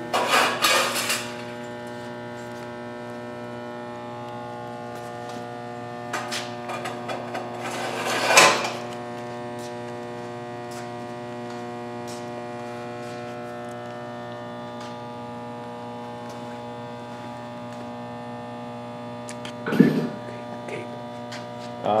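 Steady electrical mains hum with a buzzy stack of overtones, broken by a few short louder noises about a second in, around eight seconds in and near the end.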